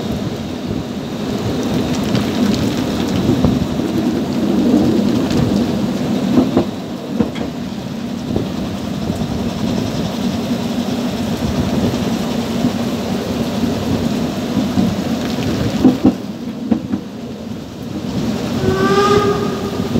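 Narrow-gauge steam train running in heavy rain, heard from an open carriage: a steady low rumble of the wheels on the rails under a hiss of rain, with scattered knocks. Near the end the locomotive's whistle sounds briefly.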